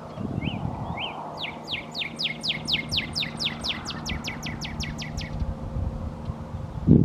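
Male northern cardinal singing: two short notes, then a fast run of about eighteen down-slurred whistles, about five a second, lasting about four seconds. Under it a low rumble, and a thump right at the end.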